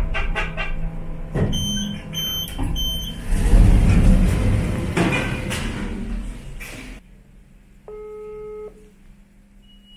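Three short, high electronic beeps inside a lift, followed by a few seconds of loud rumbling and clatter from the lift. It then goes much quieter, and a phone's ringback tone sounds once for just under a second, followed by a short high beep.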